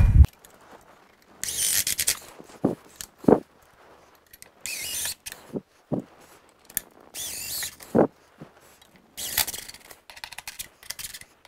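Cordless drill driving self-tapping hex-head sheet-metal screws through a stove pipe trim ring into a metal ceiling support box: four short, high-pitched whirring bursts, one per screw, with short knocks and clicks between them as the driver is moved from hole to hole.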